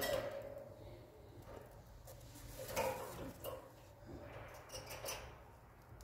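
A budgerigar pecking at a finger through the wires of its cage: about five light, scattered clicks and taps on the wire.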